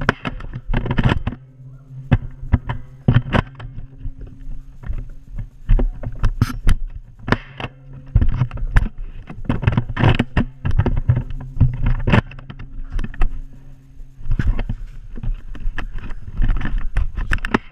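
Irregular knocks, thumps and rubbing from a body-worn action camera knocked about as its wearer moves low across a carpeted room, over a steady low hum.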